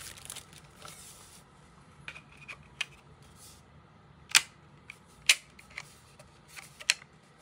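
A plastic bag crinkles briefly, then a plastic mounting bracket is pressed onto the back of an Alta Labs AP6 Pro access point, giving several sharp plastic clicks as it snaps into place. The two loudest clicks come a little under a second apart, about halfway through.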